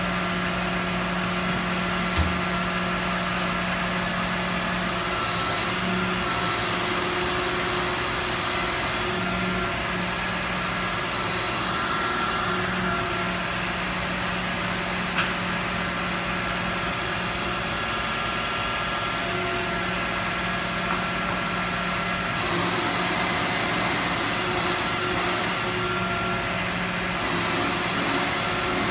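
Heavy wrecker's diesel engine running steadily with an even hum and a faint, wavering high whine, as the wrecker's controls are worked. Two short clicks about two seconds in and again about fifteen seconds in.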